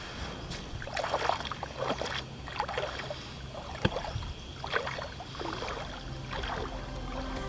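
Someone wading slowly through calm, knee-deep sea water: a soft splash and swish with each step, about one a second, with one sharp click about four seconds in.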